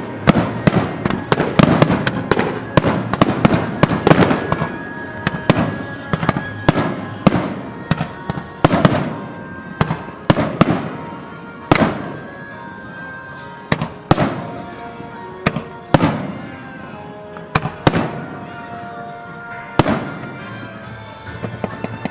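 Aerial fireworks bursting: a rapid barrage of bangs for the first few seconds, then single sharp booms every second or two. Music plays underneath with held notes.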